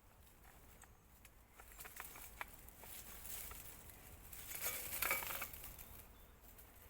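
Rustling and crunching of brush and leaves with scattered small snaps and clicks, loudest about five seconds in, as a lamp caught in a tree is worked free by hand.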